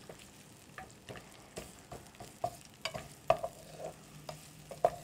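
Wooden spatula stirring chopped onion in a non-stick frying pan, its strokes knocking and scraping against the pan in irregular clacks, over the sizzle of the onion frying in oil as it softens.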